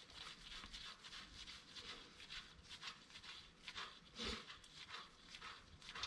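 Faint, irregular rubbing and light scraping as a spindle nut is turned off a boat trailer's threaded wheel spindle by a gloved hand, with one slightly louder bump about four seconds in.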